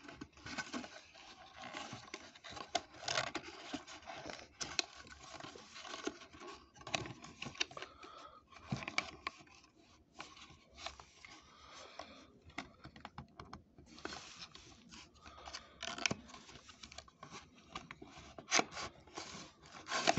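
Cardboard packaging scraped and rustled by hand as a clear plastic display case is worked out of its box, in irregular short strokes with scattered light clicks and taps.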